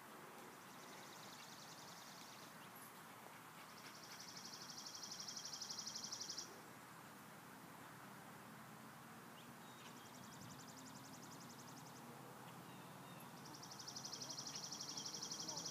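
A small songbird's dry, rapid, high-pitched trill, repeated four times at intervals of a few seconds, each trill about two seconds long and alternately fainter and louder, over a faint steady outdoor hiss.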